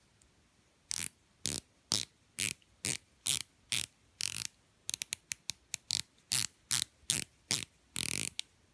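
Unidirectional 120-click ceramic dive bezel of a Heimdallr 62MAS watch case being turned by hand, ratcheting in short bursts of clicks about twice a second, with a quicker run of clicks near the middle.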